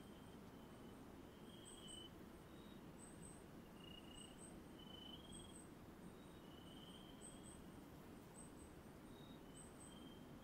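Faint night chorus of forest insects: short high chirps repeating about once a second, with longer, lower-pitched chirps scattered among them over a steady background hiss.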